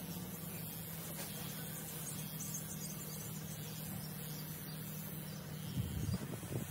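Electric hair trimmer buzzing steadily, switched off near the end, followed by a few light handling knocks.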